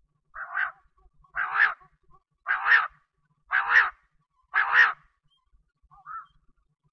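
Quail (bater) calling: five loud, harsh calls about a second apart, each in two quick parts, then a fainter call near the end.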